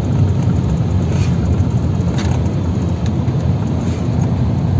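Steady low rumble of a car driving on the road, engine and tyre noise heard from inside the cabin, with a few faint clicks.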